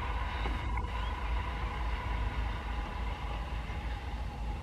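Diesel-electric locomotive of a long passenger train rumbling past at low speed and moving away, with a faint steady whine above the rumble that fades.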